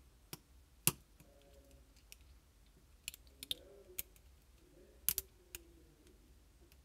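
Small, irregular clicks and taps as wiring plugs are worked off a circuit board in a paintball marker frame with a small tool, about eight in all, the loudest a quick double click about five seconds in.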